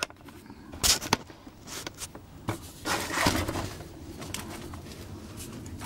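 Handling noise: a few sharp clicks and knocks, then a stretch of softer scraping and rustling, as suspension parts, brake lines or the camera are handled.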